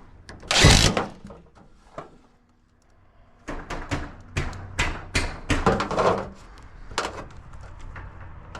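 Thunks and knocks of an aluminum downspout and its mounting strap being handled against a wall: one loud thunk about half a second in, then a run of shorter knocks and clicks after a quiet spell.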